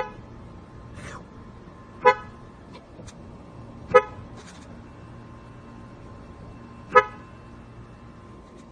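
A vehicle horn giving four short, separate toots at irregular gaps, over a low steady background hum.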